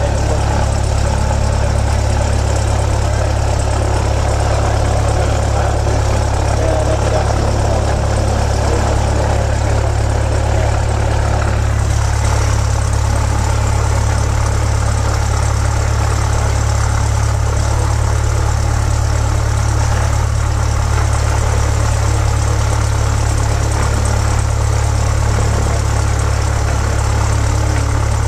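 Light aircraft's piston engine and propeller running steadily, a loud low drone heard inside the cockpit. A higher rushing noise over it eases a little about twelve seconds in.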